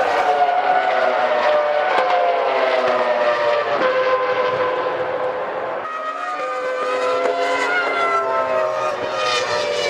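Several Formula One cars' V10 engines running at high revs, their notes sliding down in pitch as they pass, with a new set of engine notes taking over about six seconds in.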